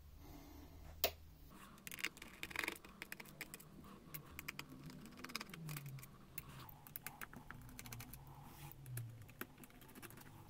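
Faint small clicks, ticks and scrapes of a screwdriver and small parts being handled on a laptop's opened plastic chassis during disassembly. There is one sharper click about a second in, then a run of quick light ticks through the middle.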